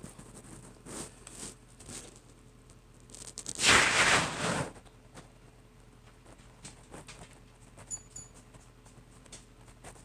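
Light scuffs and pattering of cats' paws scrambling after a laser dot, with one loud rasping, scratchy rush lasting about a second, about four seconds in.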